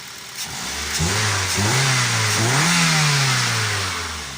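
Toyota Avanza's K3 inline-four engine revved: the engine note climbs about a second in, rises again a little later, then falls back toward idle near the end.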